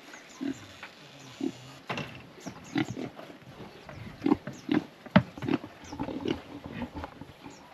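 Pigs grunting in a pen: many short grunts from several animals, coming thicker from about two seconds in, with a few sharper clicks and knocks among them.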